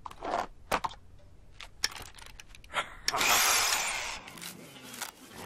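Cartoon sound effects: a few light clicks and handling taps, then a brief loud rushing burst from a power drill about three seconds in, fading away over about a second.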